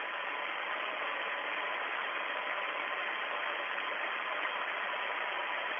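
Steady hiss of an open air-to-ground radio link from the Soyuz between transmissions, with a faint steady tone running through it.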